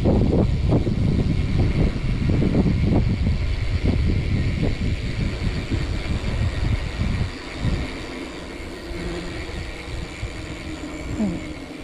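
Rumbling road and wind noise of a ride, loud and gusty for about the first seven seconds, then dropping to a quieter, steadier hum.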